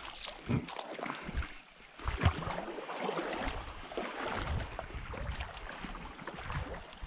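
Water sloshing and splashing around the legs of someone wading a shallow, slow creek, in irregular steps, with intermittent low rumbles of wind on the microphone.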